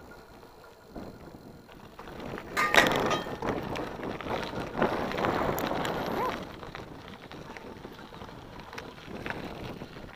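Mountain bike riding over a rough gravel track: tyres crunching on loose stones while the bike rattles and clicks over the bumps. The rattling is loudest for a few seconds, starting about two and a half seconds in, then it settles to a steadier rolling noise.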